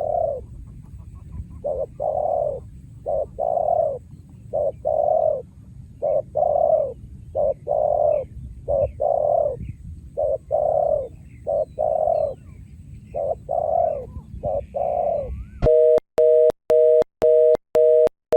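Spotted dove cooing, a long run of repeated low coo notes in short phrases. About three seconds before the end the cooing stops and a two-tone electronic beep takes over, pulsing about twice a second.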